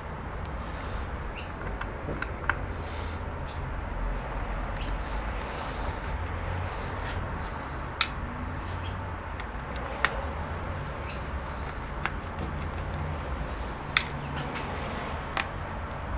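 Hands and small tools working on a laptop's casing: scattered sharp clicks every couple of seconds and faint scraping, over a steady low hum.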